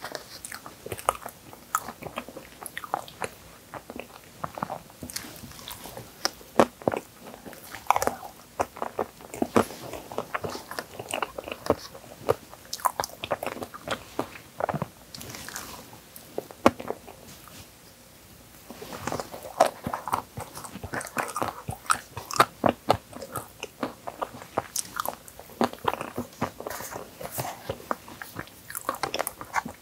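Close-up eating sounds: chewing and smacking on a soft cream tiramisu with Oreo cookie pieces, with a few light crunches and the clicks of a plastic spoon scooping from a plastic bowl. The sounds come in quick, irregular clicks, with a short lull a little past halfway.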